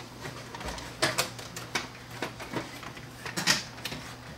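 Scattered clicks and knocks of a VCR circuit board and its plastic and metal chassis parts being handled as the board is lifted out and stood on end, the loudest knock a little past three seconds in.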